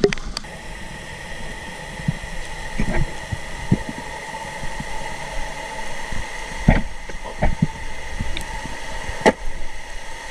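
Muffled underwater sound picked up by a diving camera: a steady low hum with a faint high whine running through it. Several dull knocks sound through it.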